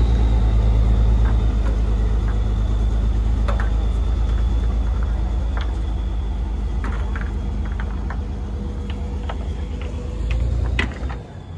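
Dump truck engine running with a deep rumble that slowly fades as the truck pulls away with its bed raised. A few sharp knocks come through it.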